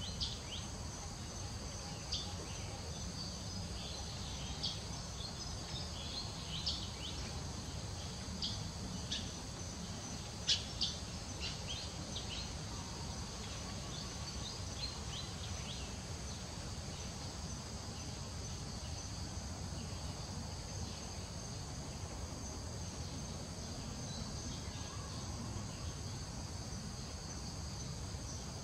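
A steady, high-pitched insect chorus, with scattered short high chirps that cluster around the middle, over a low steady rumble of background noise.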